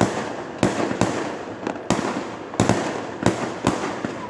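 Fireworks display: aerial shells bursting in a rapid string of sharp bangs, about two a second, with crackling in between.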